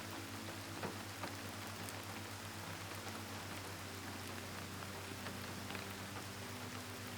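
Soft, steady rain: an even hiss of falling drops, with a couple of louder single drops about a second in. A faint low steady hum lies underneath.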